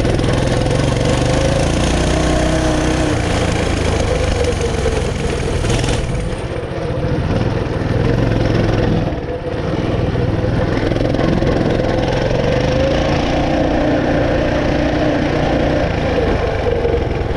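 Coleman CT200U-EX mini bike's small single-cylinder engine running under throttle during a ride, its pitch wavering. The engine eases off briefly twice, about six and nine seconds in.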